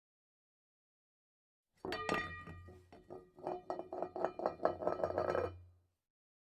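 A short burst of music with many quick struck or plucked notes over held tones and a steady low hum, starting and stopping abruptly with dead silence either side.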